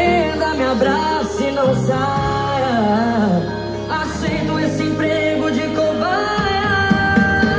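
Music with a sung melody and a strong deep bass, played loud through a Ford F-250 pickup's custom car audio system of door-panel speakers.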